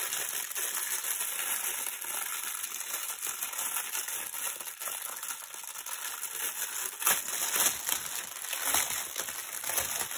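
Clear plastic bag crinkling as it is untied and pulled open by hand, with the bagged resin drills inside shifting and rattling. Louder crackles come about seven seconds in.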